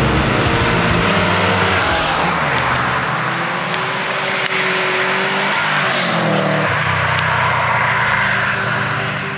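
Subaru WRX cars driving past one after another, their engines revving and accelerating, then fading as they move off.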